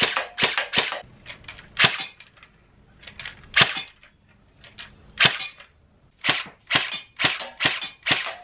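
Umarex HK416C electric airsoft rifle firing single shots: sharp cracks, a quick run of about four a second at the start, then a few spaced shots, then a steadier string of about two a second near the end.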